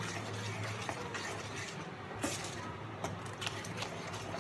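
Spatula stirring tomato purée and masala in a kadai, with soft scrapes and a few light clinks against the pan, over a steady low hum.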